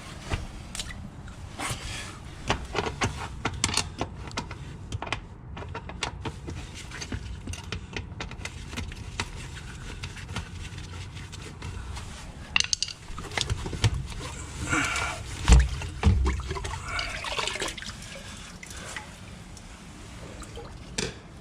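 Scattered clicks and knocks of tools and fittings being handled at a blocked drain, with a few heavier thumps about three-quarters of the way through, over faint running water.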